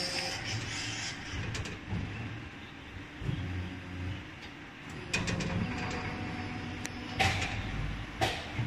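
CLF-300 servo-driven injection molding machine running: a steady low hum with a few sharp clacks and short hissing bursts from about five seconds in and again near the end.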